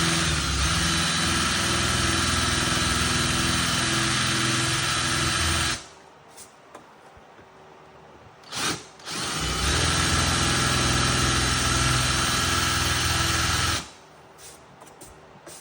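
Power drill running under load in two long steady runs with a brief blip between them, countersinking screw holes with a 1/4 inch bit.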